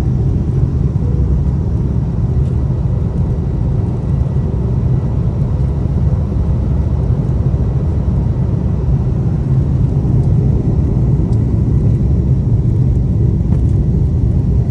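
Airliner engines and airflow heard inside the cabin during the takeoff climb: a steady, loud low rumble with a faint thin whine above it.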